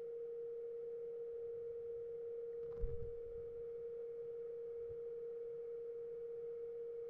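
Steady high-pitched electrical whine at one unchanging pitch from a powered-up welding inverter board on the test bench. A single soft low thump about three seconds in.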